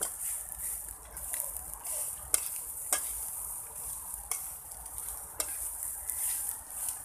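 Eggs frying in a metal pan over a wood fire, sizzling steadily, while a spatula stirs them and scrapes and taps against the pan with sharp clicks every second or so.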